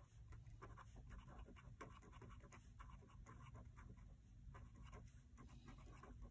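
Faint scratching of a green felt-tip pen writing a line of words on paper held on a clipboard, many short quick strokes in a row.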